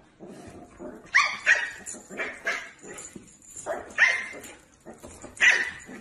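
A small puppy barking: a string of about seven short, high-pitched yapping barks, some in quick pairs.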